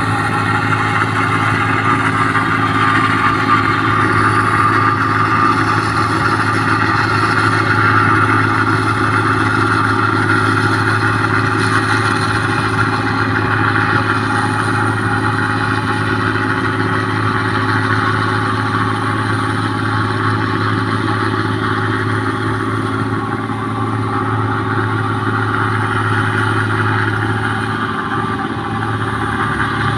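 New Holland 1545 combine harvester running steadily while it cuts and threshes rice: a constant engine note with the noise of the machinery over it.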